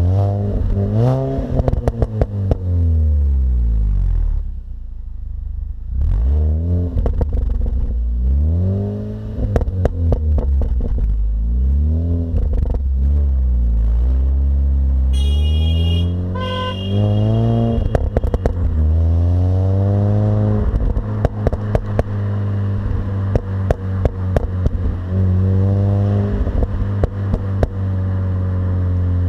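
Mini Cooper S R53's supercharged 1.6-litre four-cylinder on its stock exhaust, revving up and falling back again and again, with sharp clicks scattered between the revs. A brief high-pitched tone sounds about halfway through.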